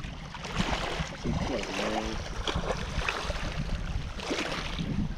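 Wind buffeting the microphone, a steady low rumble of gusts, with a few small rustles and knocks on top.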